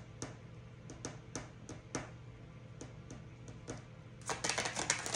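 Tarot cards being handled and shuffled: scattered soft card clicks, about two or three a second, then a quick dense flutter of cards about four seconds in.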